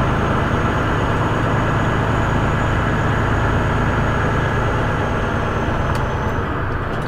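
Semi truck's diesel engine running, a steady low hum.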